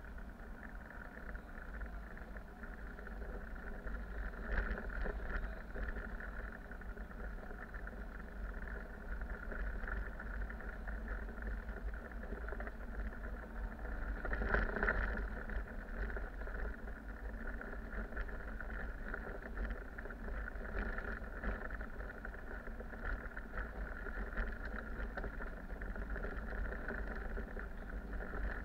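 Cabin noise of a replacement bus driving at night: a steady deep rumble of engine and road with a constant hum. Short rattles and bumps come every several seconds, the strongest about halfway through.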